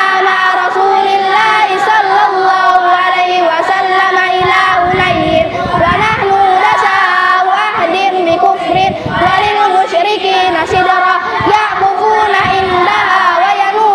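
A group of children chanting together in unison to a melody, their voices holding long notes.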